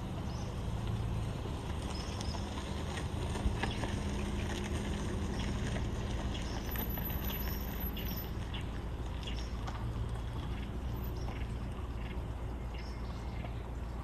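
Forest birds giving short, scattered chirps over a steady low rumble, with irregular light taps and clicks; the sharpest click comes about three and a half seconds in.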